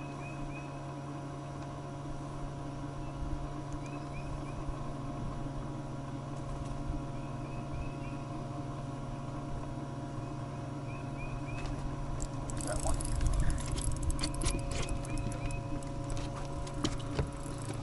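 Electric boat motor humming steadily, with short high chirps in small runs of three or four now and then. From about two-thirds of the way through, a clatter of sharp clicks and knocks comes in over it.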